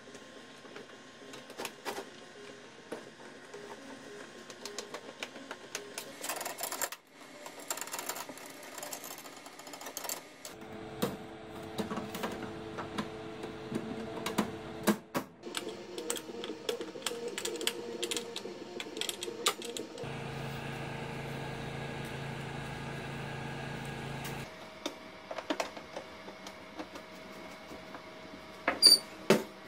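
Metal parts of an old camper propane stove clicking, clinking and knocking as the stove is handled and reassembled. A steady low hum runs under some stretches and changes abruptly at several points.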